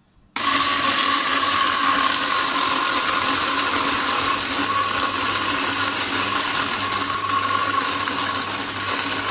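Electric ice crusher switched on about half a second in, its motor running steadily and grinding the ice cubes loaded in it: a loud, steady grinding noise with a low hum.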